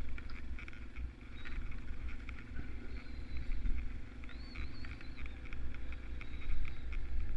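Vehicle engine running steadily at low speed, with light rattles and clicks from the ride over a rough trail. A few brief high chirps come about four seconds in.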